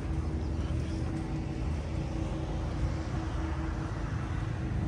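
Steady low engine drone with a constant hum, from a running engine not in view, over outdoor background noise.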